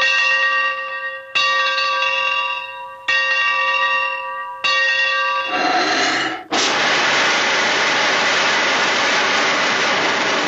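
A bell struck four times, about one and a half seconds apart, each strike ringing with several clear overtones and fading. About six and a half seconds in, a steady, loud hiss takes over, made as a cartoon sound effect.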